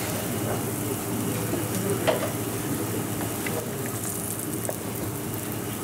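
Dosa batter sizzling on a hot flat griddle, the hiss brightening around four seconds in as oil is drizzled over it from a squeeze bottle. A single sharp click sounds about two seconds in.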